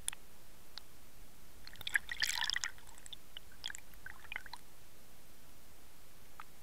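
Water bubbling and crackling against an underwater fishing camera, a dense burst of crackles about two seconds in and scattered drip-like ticks after it, over a steady hiss.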